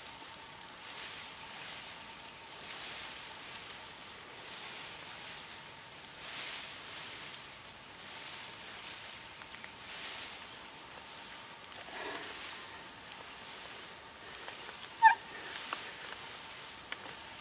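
Steady high-pitched chorus of crickets, with faint intermittent scraping from a hand-turned Scotch-eyed auger boring into an oak log, and one short sharp squeak near the end.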